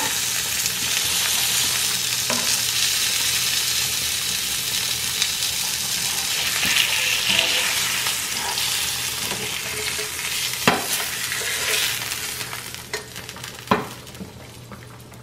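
Salmon fillet sizzling in hot oil in a nonstick frying pan as it is turned with a slotted spatula. The sizzle dies down in the last few seconds as the fillet is lifted out, and there are a couple of sharp clicks of the spatula against the pan.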